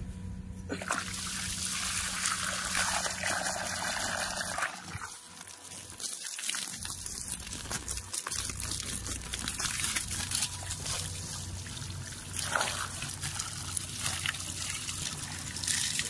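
Water running in a steady trickle with light splashing.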